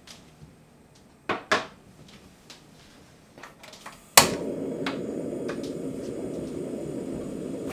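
Two knocks of the saucepan on the stove and a few light clicks. About four seconds in, a gas burner lights with a sharp pop under the pan and then runs with a steady low rush.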